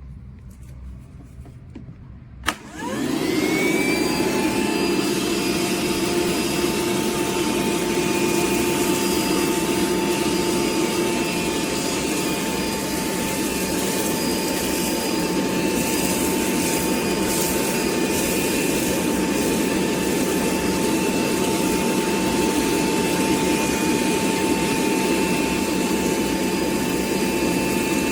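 DeWalt DCV580H 20V MAX wet-dry shop vacuum switched on with a click about two and a half seconds in. Its motor whines up to speed within about a second, then runs steadily: a steady whine over the rush of air.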